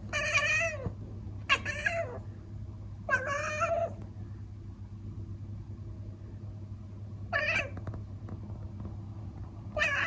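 A Thai (traditional Siamese) cat chattering at a bird outside the window in short, meow-like calls: three close together in the first four seconds, then one more later and another starting near the end. It is the frustrated sound of a cat that sees prey it cannot catch.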